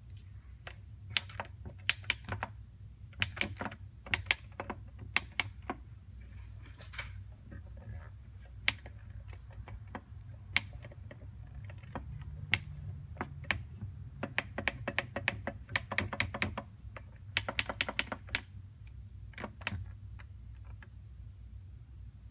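Plastic buttons of a c-Loops loop controller being pressed and tapped, clicking in irregular runs with a few quick bursts of several clicks, over a steady low hum.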